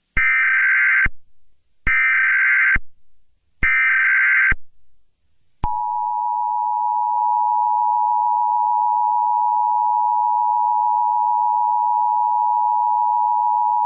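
Emergency Alert System tones: three short identical bursts of the digital SAME header data, then, starting about halfway in, the steady two-tone attention signal held for about eight seconds.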